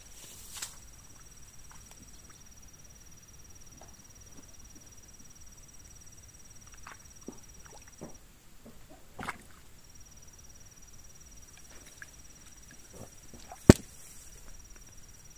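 A steady high-pitched insect trill that breaks off for a moment in the middle, over scattered soft clicks and rustles, with one sharp crack near the end.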